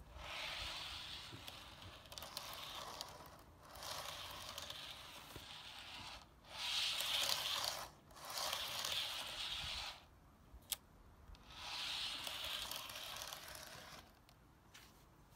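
Model railway coaches pushed by hand back and forth along the track, their wheels rolling on the rails in six runs of one to two and a half seconds each. A single sharp click comes about ten and a half seconds in.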